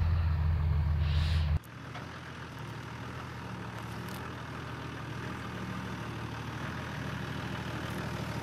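Diesel engine of a lifted 80-Series Land Cruiser running at low revs as the truck crawls down a rocky slope. A louder, deeper rumble cuts off abruptly about a second and a half in, leaving a quieter, steady engine hum that slowly grows louder.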